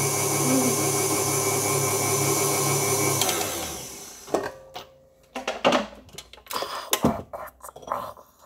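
Electric kitchen mixer running steadily, then switched off about three seconds in and winding down. A few short knocks and clinks of utensils against a bowl follow.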